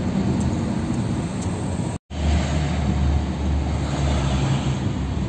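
UD Quester truck's diesel engine running while driving, heard from inside the cab as a steady low drone with road noise. The sound cuts out for an instant about two seconds in, then the low drone returns stronger.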